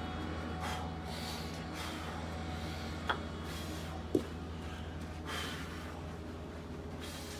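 A man's fast, forceful breathing in short irregular bursts, deliberate rapid breaths to get the blood flowing before a full-effort swing. Two short sharp clicks about three and four seconds in, over a steady low hum.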